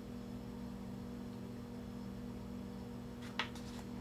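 Steady electrical hum, with one brief paper rustle about three and a half seconds in as a page of a softcover rulebook is turned.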